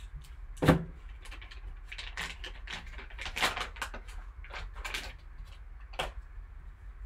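Plastic pack wrapper crinkling and rustling as a graded card's hard plastic slab is pulled out and handled, with hard plastic clicks and knocks. The sharpest knock comes a little under a second in, and another near the end.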